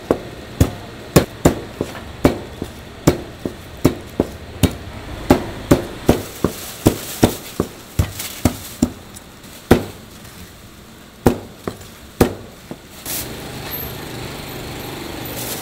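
Cleaver chopping braised pig tails on a plastic cutting board: a run of sharp chops about three a second, slowing to a few single chops after about nine seconds. Near the end a plastic bag rustles as the pieces are bagged.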